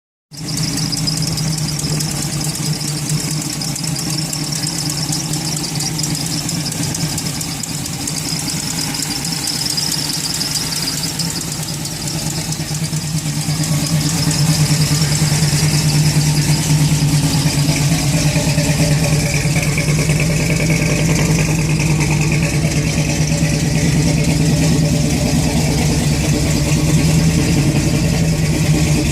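Supercharged 454 V8, fitted with a 6-71 blower and twin 650 carburettors, idling steadily. It grows a little louder about halfway through.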